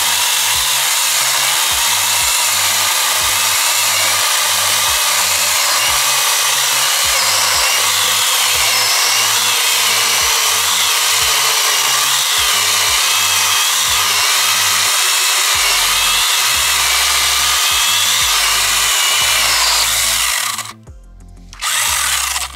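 Yofidra cordless 8-inch mini chainsaw with a brushless motor, cutting wood: a steady loud running noise with a high whine that wavers in pitch as the chain bites. It stops about 21 seconds in and runs again briefly just before the end.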